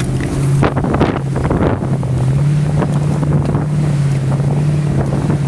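Jeep Grand Cherokee's 4.7-litre V8 running at a steady low drone under load while crawling up a rocky hill climb, with knocks and rustling in the first couple of seconds.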